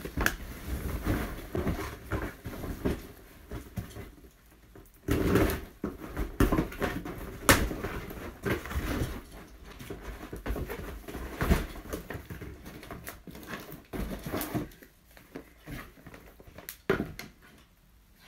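Packaging being handled: cardboard boxes shifted and opened and plastic bubble wrap rustling, with irregular knocks and thumps.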